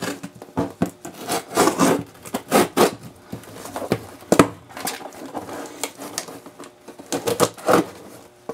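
Scissor blade slicing through packing tape along the seam of a cardboard box, in irregular scraping, rasping strokes, with a sharp click about halfway through.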